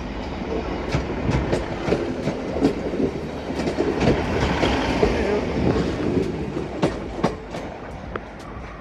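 Class 150 Sprinter diesel multiple unit moving through the station, its wheels clicking sharply and irregularly over rail joints and pointwork with a rumbling running noise. It is loudest about midway and fades toward the end.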